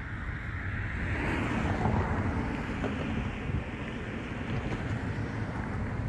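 Wind buffeting the microphone, a steady low rumble, with a louder rushing swell that rises about a second in and eases off by about four seconds.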